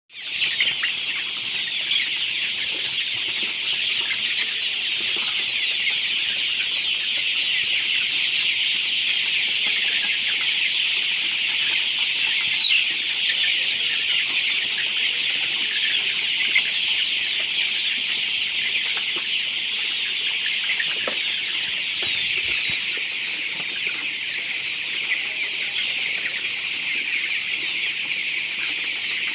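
Hundreds of young Golden Misri chickens in a crowded flock all peeping and cheeping at once, a steady, high-pitched din without a break.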